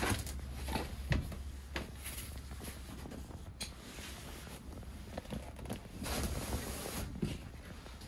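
Jackknife sofa with vinyl cushions being folded down flat into a bed: scattered clicks and knocks from its hinge mechanism and a rustle of the cushions about six seconds in.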